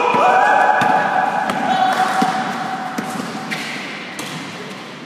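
Basketball bouncing and shoes thudding on an indoor court floor, echoing in the hall. Over the first three seconds or so a long held pitched sound is louder than the thuds.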